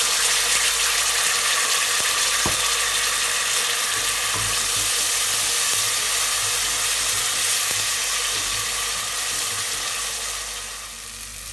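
Blended tomato sauce sizzling steadily in hot oil with fried whole spices in a steel pot; the sizzle eases a little near the end.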